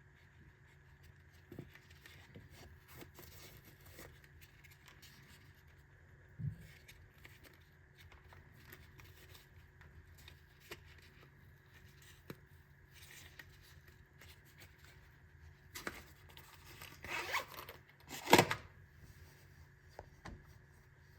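Handling noises over a steady low hum: scattered small clicks and a soft thump, then near the end a short rasping sound and a louder, sharper rasp like a zip being pulled.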